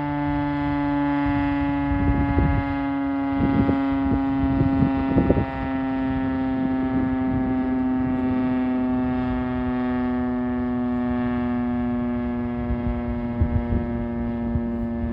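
Federal Signal STH-10A single-tone siren sounding one steady tone, its pitch slowly falling as the rotor winds down. A few low thumps come about two to five seconds in and again near the end.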